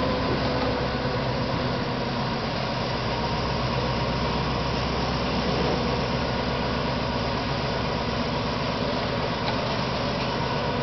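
Diesel-hauled freight train of ballast hopper wagons, the locomotive's engine running steadily with an even rumble and no change in loudness.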